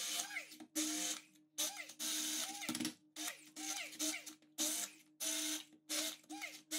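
Handheld immersion blender pulsed on and off in about ten short bursts, its motor whine rising and falling each time as the blades chop basil, garlic, nuts, cheese and olive oil into a thick pesto. The pulsing is to break down the basil leaves that are still not fine enough.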